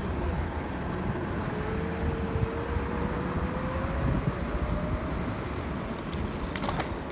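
Steady rumble of wind and road noise from a GoTrax GXL electric scooter being ridden, with a faint whine that rises slowly in pitch in the middle, as the scooter picks up speed.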